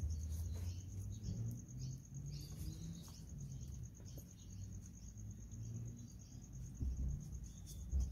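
Crickets chirping in a steady high trill, over a low rumble and a few faint knocks.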